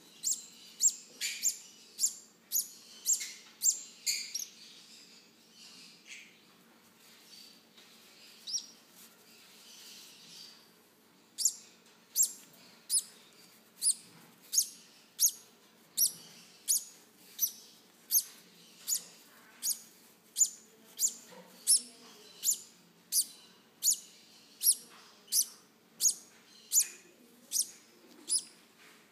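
Baby green-cheeked conures giving short, high-pitched chirps, the food-begging calls of hand-fed parrot chicks. An irregular flurry comes first, then a lull of several seconds, then a steady run of about two chirps a second.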